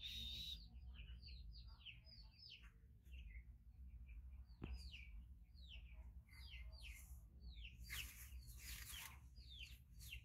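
Faint chirping of small birds: many short, falling chirps, several a second, with a brief rustling noise about eight seconds in.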